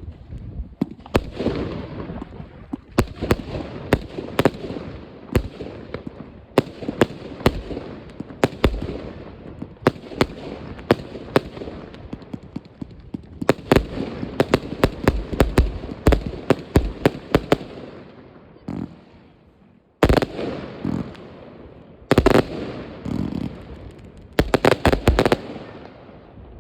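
New Year's Eve fireworks going off: a dense stream of sharp bangs and crackling that thins out, then starts again suddenly and loudly about twenty seconds in, ending with a quick run of bangs.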